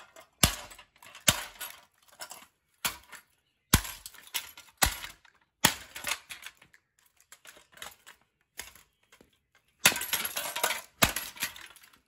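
Remains of a Westinghouse ceiling fan's metal motor housing being smashed on concrete: more than a dozen sharp impacts at uneven intervals, with a quick cluster of blows about ten seconds in.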